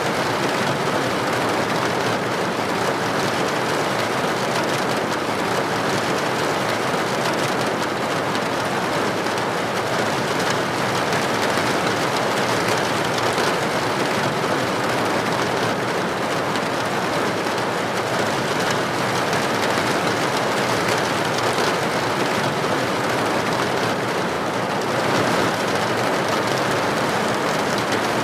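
Steady rain falling, a dense even patter of drops on a surface such as a roof or window, with no breaks.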